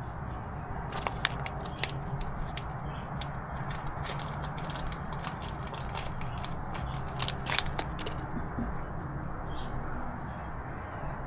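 A run of small sharp clicks and crackles as silicone snap-in hole plugs are squeezed and pressed into holes in the truck's plastic lower panel, over a steady low background hum.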